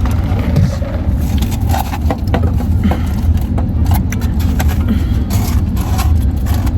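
Takeout food containers and utensils clicking, crinkling and scraping as food is served onto a plate, over a steady low rumble.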